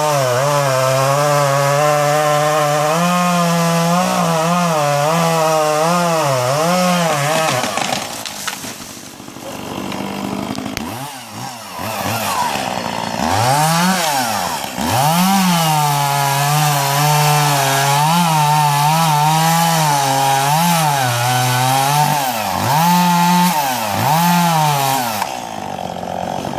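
Chainsaw running hard, its engine pitch wavering up and down as it works through wood. About eight seconds in it drops back for a few seconds, then revs up again several times in quick swells.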